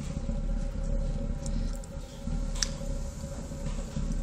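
Waste-oil stove burning with a steady low rumble and a faint steady hum. A single short click comes about two and a half seconds in.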